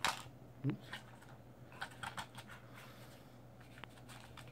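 Light scattered clicks and taps of a small metal vape atomizer build deck being turned over in the fingers.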